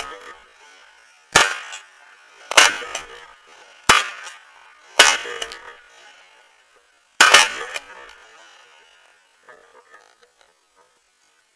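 Five shotgun shots, the first four about a second apart and the last after a slightly longer gap, each dying away in a short echo. A few faint sounds follow near the end.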